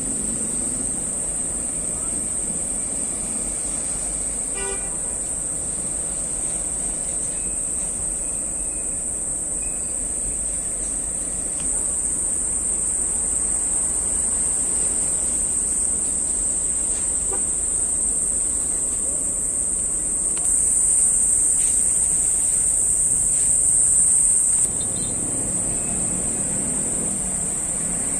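Steady high-pitched insect drone, louder for about four seconds past the middle, over a low steady rumble.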